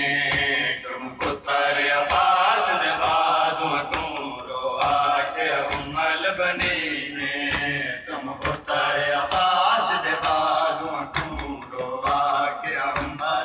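Men chanting a Shia lament together in a steady rhythm, over sharp rhythmic chest-beating slaps of matam, about one slap a second.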